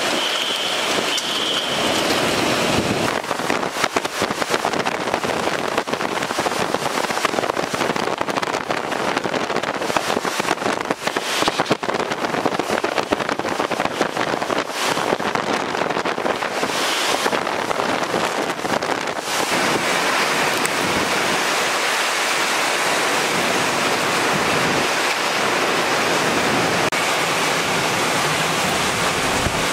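Hurricane-force wind blowing with heavy rain, gusting and buffeting the microphone, with a brief high whistle in the first two seconds. The sound changes abruptly about three seconds in and again near twenty seconds, as one storm recording gives way to another.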